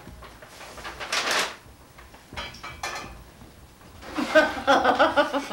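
Household kitchen sounds: a rustle about a second in, then a few light clinks and knocks like dishes on a table, followed near the end by indistinct voices talking.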